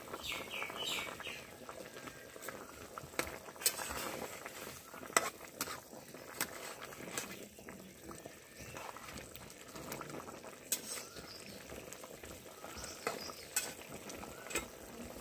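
Curry broth boiling in a pan, a steady bubbling, with scattered clicks and knocks of a utensil against the pan.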